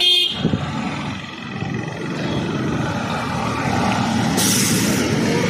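Wind and road noise of a Hero scooter riding along at speed, a steady rushing that grows a little louder toward the end, with a short burst of hiss about four and a half seconds in.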